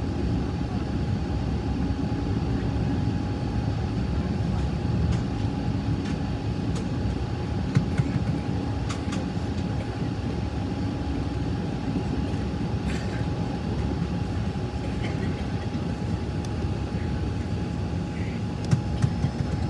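Airliner cabin noise during the climb after takeoff: a steady low engine and airflow rumble with a faint steady whine. A few small clicks and rattles come about eight seconds in and again near the end.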